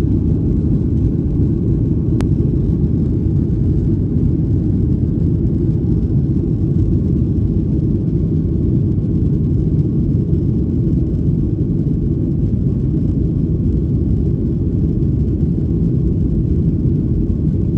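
Steady low rumble inside the cabin of a Boeing 737-800 on the ground, with a faint click about two seconds in.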